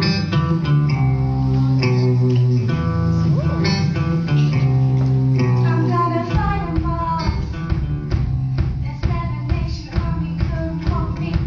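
Rock band playing live with guitars and bass: sustained low chords ring for about six seconds, then the song moves into a busier rhythmic part with regular drum hits.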